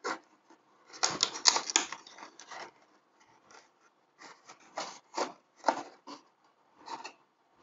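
Small cardboard bulb box being opened by hand and an LED bulb in plastic packaging slid out: irregular scrapes and rustles, the loudest cluster about a second in, then smaller ones spread out.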